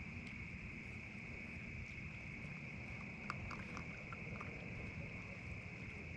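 Steady night insect chorus, a continuous high trill, over a low rumbling hiss. A short run of faint clicks comes a little past halfway through.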